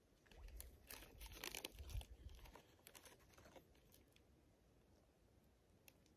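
Faint crinkling and tearing of a plastic food package being opened, busiest for the first three and a half seconds, then only a few scattered crinkles.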